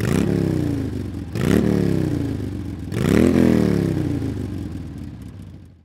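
Honda Monkey 125's single-cylinder four-stroke engine revved three times, each throttle blip rising quickly in pitch and then sinking slowly back, the last one fading away near the end.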